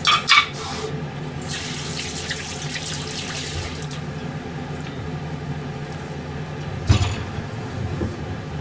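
Kitchen tap running into the sink for about two seconds, with a couple of clinks just before and a single knock near the end, over a steady low hum.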